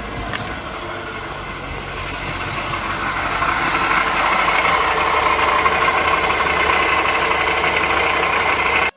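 Toyota Probox NCP58G's 1NZ-FE four-cylinder engine running with the abnormal noise that is cured once a part is replaced. The noise grows louder over the first few seconds, holds steady, then cuts off suddenly at the end.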